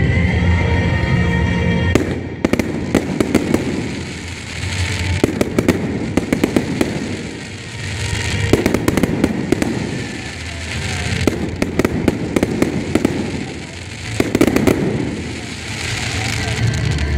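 Fireworks display: aerial shells bursting into gold crackling stars. Dense crackle comes in waves about every three seconds, with music playing underneath.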